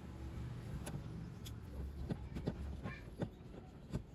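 Scattered light clicks and knocks over a low steady hum, like parts being handled and fitted back together.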